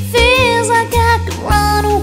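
Background music: a pop song with a sung melody over bass and a steady beat.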